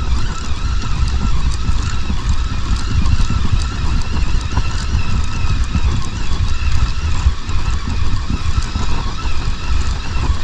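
Wind buffeting the microphone in a steady, gusting rumble, with the wash of surf breaking on the beach behind it.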